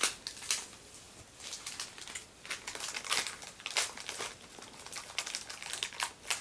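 Thin plastic packaging bag crinkling in quick, irregular crackles as a small toy part is worked out of it.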